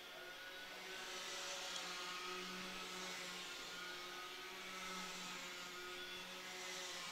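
Racing karts' Rotax Mini Max two-stroke engines running at speed, a steady buzzing note that swells about two and a half seconds in and again about five seconds in as the karts pass.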